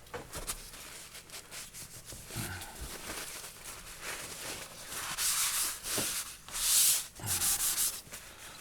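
Paper towels rubbing and wiping in a series of swishes, the loudest about five and seven seconds in.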